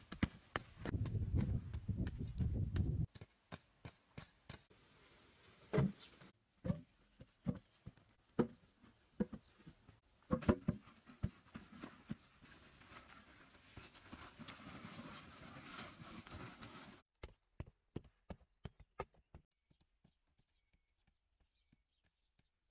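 Irregular thuds and scrapes of a long pole being driven into dry, sandy soil to dig out a small tree's roots, with loose earth rustling. It goes much quieter about two-thirds through, leaving only faint scattered ticks.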